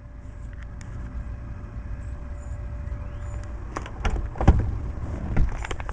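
A few sharp knocks and clicks, about four seconds in and again a second later, over a steady low rumble with a faint steady hum.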